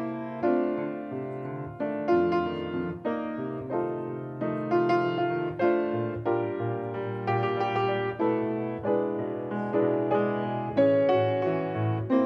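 Solo piano music: chords and melody notes struck one after another over a low bass, each note fading after it is struck.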